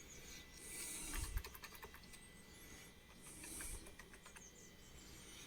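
Faint clicking of computer keyboard keys: a quick run of presses about a second in, then a few single taps. The keys are being used to step through menus, for want of a mouse.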